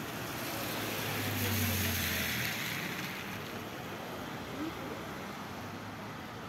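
Traffic on wet asphalt: a car passes, its tyre hiss on the wet road swelling and fading about two seconds in, over a low engine hum.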